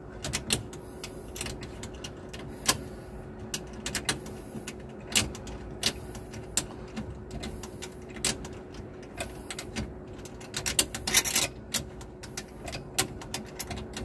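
Irregular metallic clicks and clinks of a ratchet and socket being fitted and worked on the nut of an oxygen cylinder's strap clamp, with a quick run of rapid ratchet clicks a little past the middle. A faint steady hum sits underneath.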